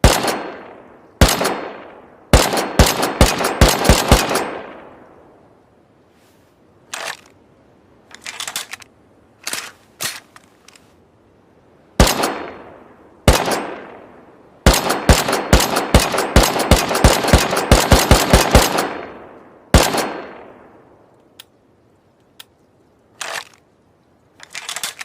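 Gunshot sound effect of a makeshift semi-automatic rifle. Single shots and rapid strings of fire, each shot ringing out with an echoing tail. There are two long volleys of about four shots a second, and quieter clicks in the lulls between them.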